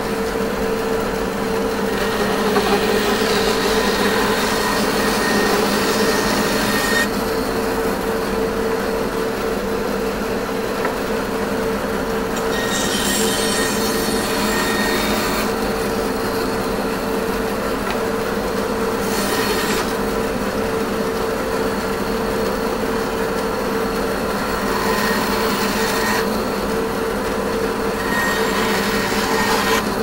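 Bandsaw running with a steady hum while cutting red ironbark into woodturning blanks; the blade hisses through the wood in several separate cuts of a few seconds each.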